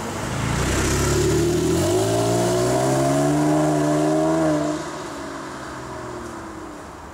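Porsche 911 Carrera 4S flat-six accelerating away: the engine note rises in pitch for a couple of seconds, then drops off suddenly about four and a half seconds in and fades as the car drives off.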